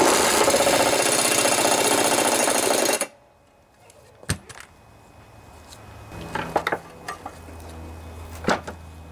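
Impact wrench hammering loudly for about three seconds as it drives a mower blade bolt tight on the deck spindle, then stopping abruptly. After it come a few light clicks and a knock of metal parts being handled.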